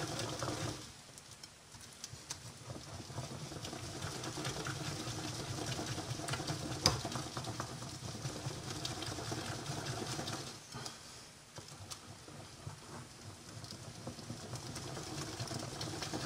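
Hands working a thick flour-and-liquid cake batter in a ceramic bowl: soft, continuous rubbing and mixing with small irregular ticks, a sharper click about seven seconds in. The batter is being thickened with flour because it came out too runny.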